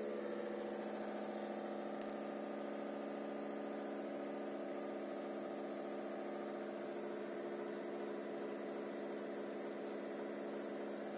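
Homemade vibro-drill, two small vibration motors shaking a saucepan pressed against the wall, heard through the wall and closed doors from another room. It makes a steady, harsh hum.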